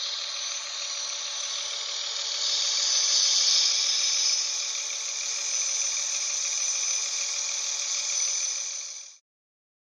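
HO-scale DCC sound model of an SNCF BB 63000-class diesel shunter running along the track, heard as a thin, steady whir from its small motor and onboard speaker. It grows louder around three to four seconds in and fades out after about nine seconds.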